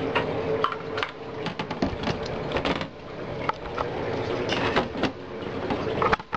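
Scattered clicks, knocks and rubbing from handling a computer case and its large CPU cooler while test-fitting it, over a steady hum.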